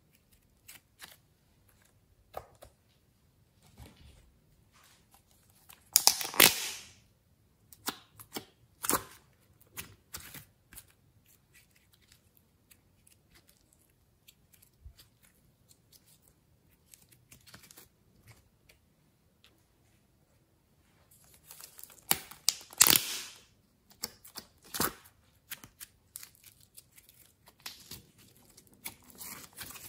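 Hands working soft slime and clay: sticky clicks and crackles, with two louder tearing sounds, one about six seconds in and one just after twenty-two seconds.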